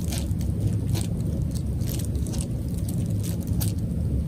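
Bubble wrap crinkling in short crackles, about two a second, as a cat noses and works at the plastic sheet, over a steady low hum.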